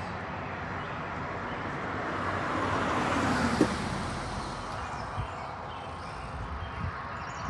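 A car passing by on a nearby road: its noise swells to a peak about three and a half seconds in, then fades away, over steady background traffic.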